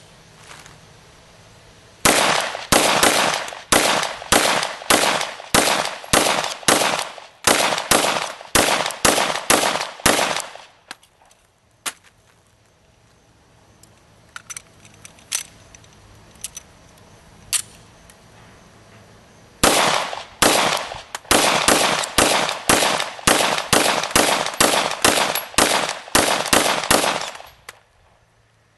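FNP-9 USG 9mm semi-automatic pistol fired rapidly: a string of about fifteen shots at roughly two a second, a pause of several seconds with a few faint clicks during the magazine change, then a second string of about fifteen shots. Thirty rounds fired without a malfunction.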